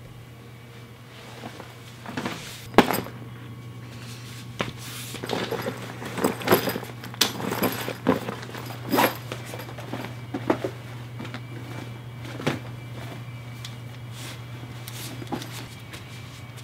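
Objects being handled and packed into a bag: a run of irregular knocks, clunks and rustles, the sharpest a knock about three seconds in, over a steady low hum.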